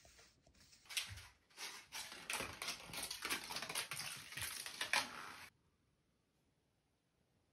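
A kitten's paws and claws skittering and scratching in a rapid, irregular run of sharp clicks that cuts off abruptly a little past halfway.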